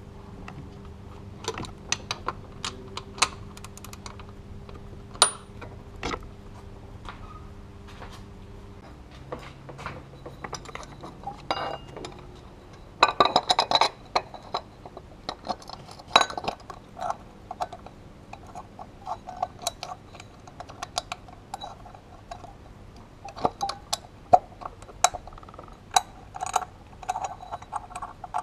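Hand tools and metal engine parts clicking and clinking irregularly as a socket ratchet and a belt pulley are worked by hand, with a dense run of clicks about 13 seconds in. A faint steady hum underneath stops about nine seconds in.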